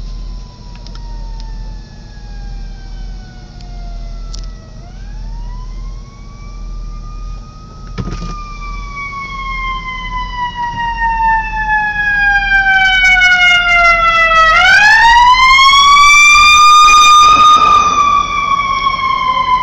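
Ambulance siren on a slow wail, sliding down in pitch over several seconds and then sweeping quickly back up, in two full cycles. It grows much louder as the ambulance comes up alongside and is loudest near the end.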